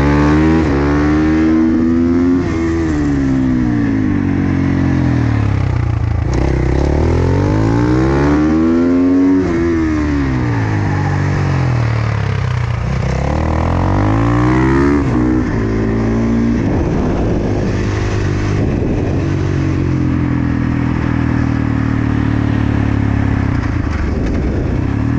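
Single-cylinder four-stroke supermoto motorcycle engine heard from onboard, its revs climbing and falling several times in the first fifteen seconds as the bike accelerates and slows through corners, then holding steadier revs for the rest.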